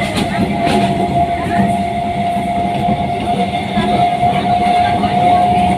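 Passenger train running, heard from inside a crowded coach: a steady rumble of the carriage with a constant high-pitched tone running through it.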